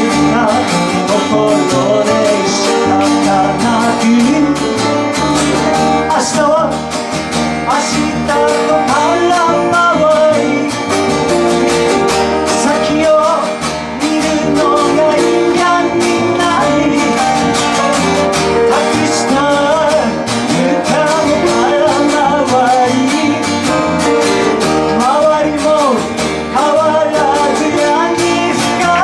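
A song with a voice singing over acoustic guitar and a steady beat.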